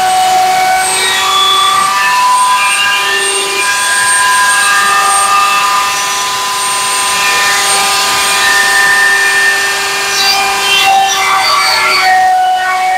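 Ryobi scroll saw running with a steady hum from its motor and reciprocating blade while it cuts through wooden boards fed into it.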